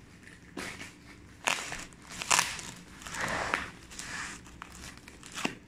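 Plastic packaging crinkling and rustling as it is handled, in irregular bursts with a few sharp, louder crackles.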